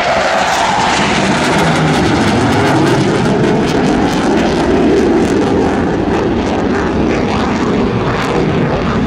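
Military helicopter flying low past, its rotor and turbine engines making a steady, loud noise.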